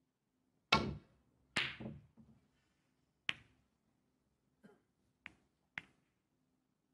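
A snooker shot: the cue strikes the cue ball, then the balls click off each other and off the cushions. There are six sharp clicks spread over several seconds, and the first two are the loudest.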